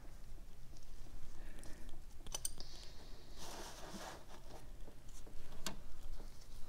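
A few light, sharp clicks from a socket and extension backing out a brake caliper banjo bolt: a quick cluster about two and a half seconds in and one more near the end, with a short rustle in between.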